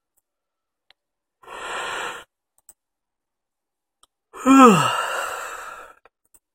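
A man breathes in audibly, then lets out a long, loud sigh, his voice falling in pitch before it trails off into breath.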